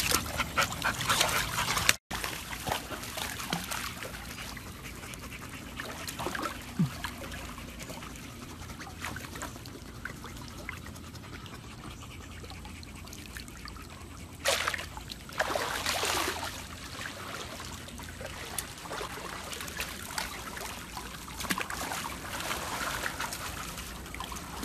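Pool water lapping and splashing, with a dog panting. Two louder bursts of noise come a little past the middle.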